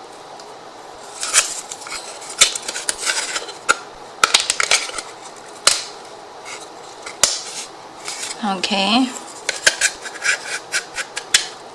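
Irregular light clicks and knocks of thin laser-cut MDF wood pieces being handled, tapped and fitted together by hand.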